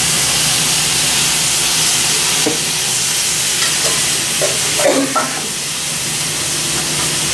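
Chicken, sausages and cabbage sizzling steadily on a Stone-Ware electric griddle grill, the meat just splashed with soy sauce.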